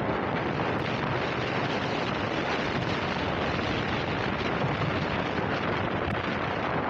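Steady rush of wind buffeting the microphone of a rider moving at speed.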